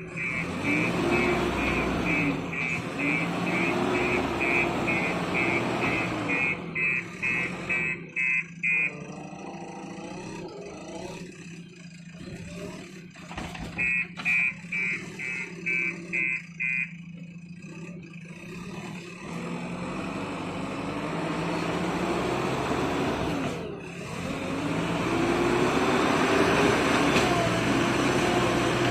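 Bulldozer's diesel engine running, its pitch rising and falling under load, while the reversing alarm beeps rapidly in two spells, about the first nine seconds and again briefly in the middle.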